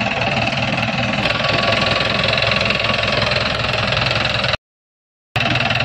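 Police jeep engine idling steadily, broken by a short dead silence about four and a half seconds in.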